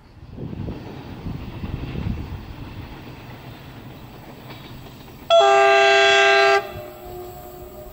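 Approaching train sounding its horn: one blast of about a second and a half, a chord of several steady tones, with a fainter ringing tail after it, given as a warning on the approach to a level crossing. Low rumbling noise before it.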